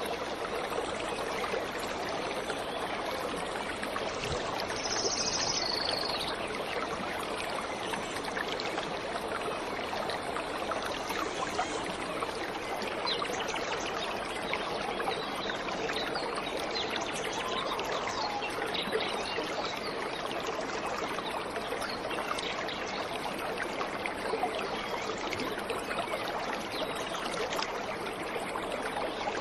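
Waterfall water rushing steadily, with faint bird calls now and then.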